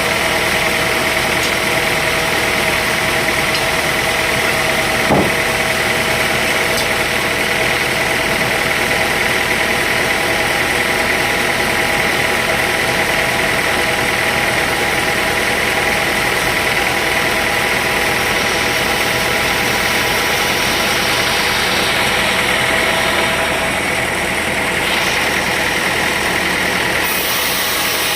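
Sawmill engine running steadily at a constant speed, with a single short knock about five seconds in.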